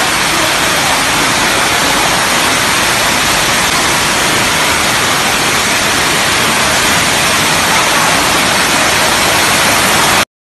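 Steady rush of water, an even noise with no separate events, that cuts off suddenly near the end.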